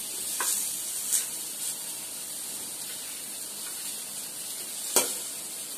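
Sprouted moong curry sizzling in a kadhai on the gas, a steady hiss, with one sharp tap about five seconds in.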